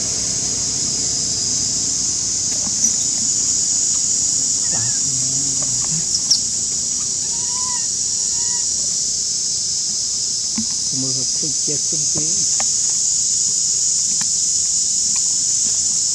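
Steady high-pitched drone of insects, with a few short rising-and-falling bird calls and a couple of sharp clicks.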